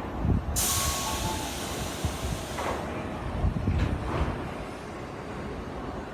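Tobu 8000 series electric train letting out a sudden burst of compressed-air hiss about half a second in, which fades over the next two seconds: its air brakes releasing as it pulls away. A low rumble from the train runs underneath.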